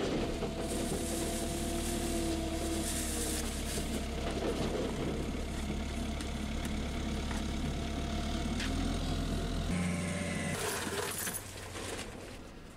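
Wood chips pouring from a wheel loader's bucket into a pickup bed, heard from inside the truck's cab, over an engine running steadily. The engine note changes about ten seconds in, and the sound drops away shortly before the end.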